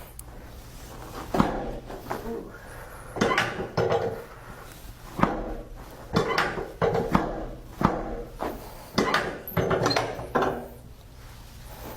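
Chiropractic adjustments: a series of sharp cracks, about eight or nine spaced a second or so apart, several followed by a person's short groans.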